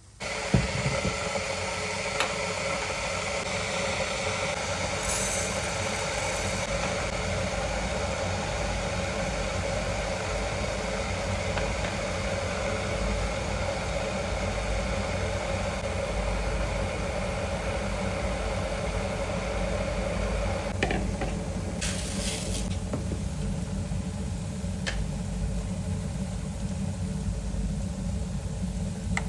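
A kitchen appliance's motor or fan switched on and running steadily with a hum, with a few light clinks over it.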